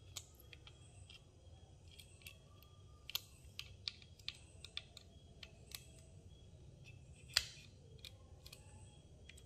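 Faint, irregular small clicks and scrapes of a small screwdriver turning tiny screws into a plastic camera battery grip, with one louder click about seven seconds in.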